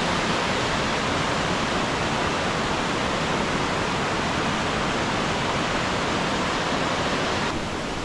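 Steady rush of water in a rocky mountain stream, an even, unbroken hiss that dips a little in level and brightness near the end.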